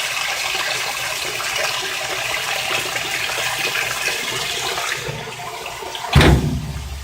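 Water rushing into the tub of a Whirlpool top-loading washer as it fills on the hot, large-load setting: a steady rush that fades somewhat toward the end. A single loud thump comes about six seconds in.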